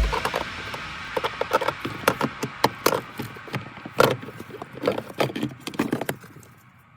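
Irregular clicks, taps and knocks of hand work on car interior parts, stopping about six seconds in.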